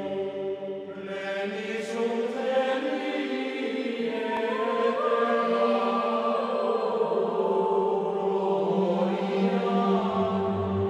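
Background music: choral chant by male voices in slow, held notes.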